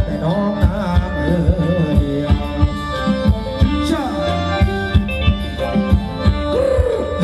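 Thai ramwong dance music from a live band: a steady drum beat of about three hits a second under held drone notes and a melody that bends up and down in pitch.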